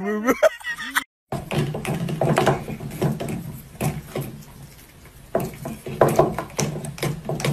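A husky's wavering, voice-like howl, breaking off about a second in. Then an electric toothbrush buzzing steadily, with many small clicks and knocks as a cat rubs and bites at the spinning brush head.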